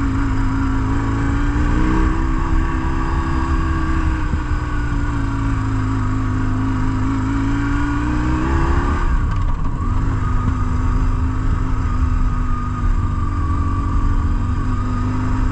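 BMW R1150GS Adventure's boxer-twin engine running under way. Its note climbs slowly until about nine seconds in, drops abruptly, then holds steady.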